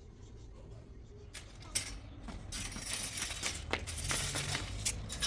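Scattered light clinks and knocks, like small hard objects being handled and set down, over a steady hiss that grows louder about halfway through.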